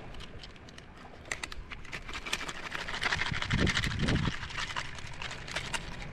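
Metal pliers clicking and scraping as a hook is worked out of a sheepshead's mouth: a string of small sharp clicks, with a heavier rustle and a couple of low thumps about three to four seconds in.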